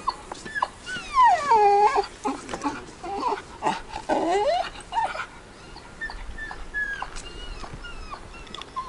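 A dog whining in repeated cries that rise and fall in pitch, loudest about one to two seconds in and again around four seconds, with shorter, fainter cries later.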